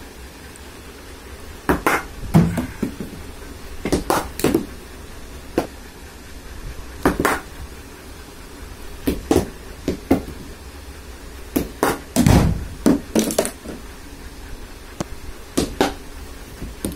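Irregular knocks and clacks of indoor cricket batting practice: a cricket ball bouncing on a hard tiled floor and being struck with a cricket bat, with one heavier, longer thud about three-quarters of the way through.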